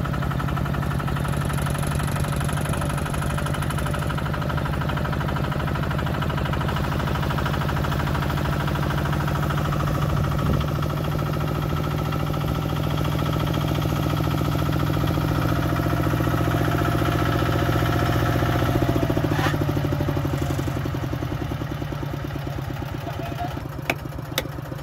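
Kubota engine running steadily, easing off somewhat in the last few seconds, with a few sharp knocks near the end.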